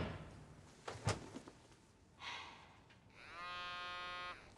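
A mobile phone buzzing with an incoming call: one steady, even buzz lasting just over a second, near the end.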